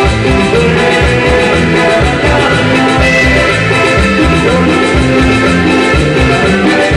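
A live band playing Latin dance music, guitar and keyboard over a steady, loud bass beat.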